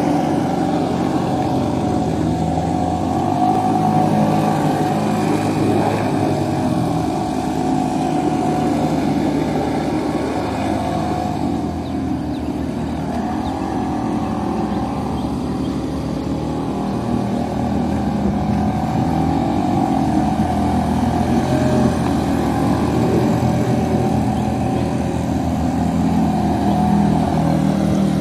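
Engines of several small jet skis running on the water, their pitch rising and falling as the riders throttle up and turn.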